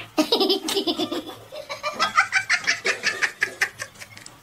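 A person laughing in a long run of quick, repeated bursts.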